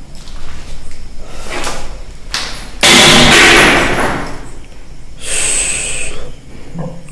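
A sudden loud bang about three seconds in that rings on and fades over a second or more, followed around five seconds in by a shorter, high-pitched squeal.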